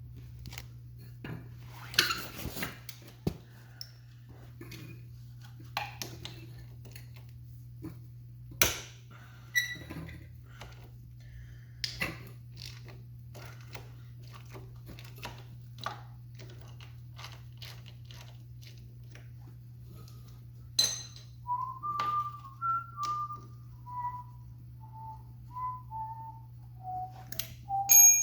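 Metal hand tools clinking and clanking now and then as a dirt bike engine is worked on, over a steady low hum. About two-thirds of the way in, a man starts whistling a short, wandering tune of separate notes.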